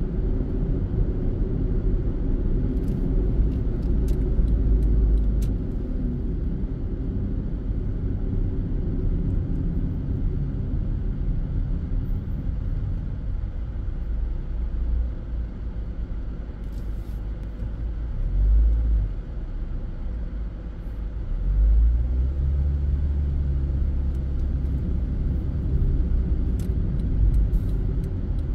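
Steady low rumble of a car's engine and tyres on the road, heard from inside the cabin. It grows louder for a few seconds about three-quarters of the way through.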